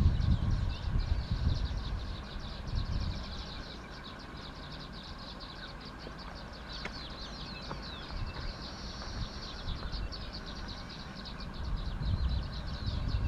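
Birds chirping busily in quick, high calls over a low, uneven rumble that is stronger at the start and swells again near the end.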